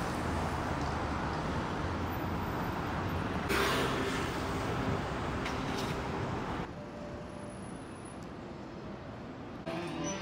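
City street traffic: cars passing with a steady road rumble, and a brief louder rush about three and a half seconds in. The noise drops about two thirds of the way through, and guitar playing starts just before the end.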